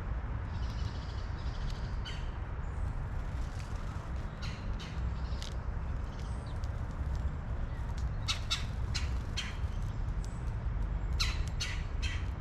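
Birds giving short, harsh calls in several quick clusters of three or four, over a steady low rumble.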